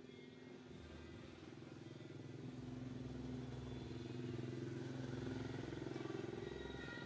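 A motor vehicle's engine droning, growing louder from about two seconds in and easing off near the end, as if passing by.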